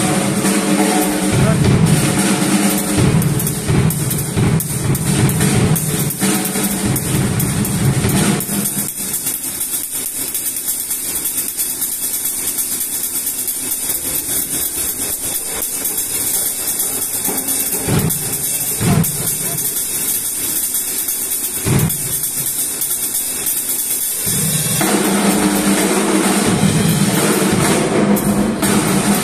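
Drum kit solo. About 8 s of dense, loud drumming with toms and bass drum gives way to a quieter stretch of steady cymbal playing broken by a few hard accents, and the full, loud drumming comes back near the end.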